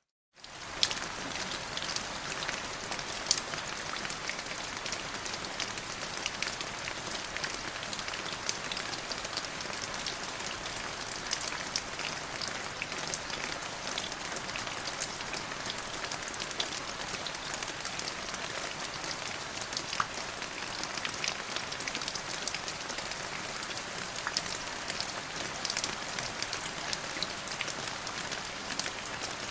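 Steady rainfall, an even hiss with many individual drops ticking sharply on a hard surface. The sound cuts out for a moment right at the start, then resumes at the same level.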